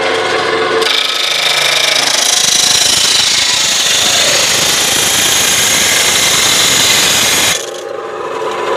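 Electric abrasive chop saw cutting through a rectangular metal tube. The motor runs with the disc spinning free, then about a second in the disc bites into the metal with a loud, steady grinding that lasts about seven seconds. Near the end the cut breaks through and the disc spins free again.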